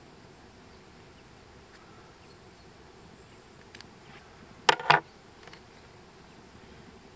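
A flying insect buzzing close to the microphone in two short bursts just before the five-second mark, over a steady faint hiss.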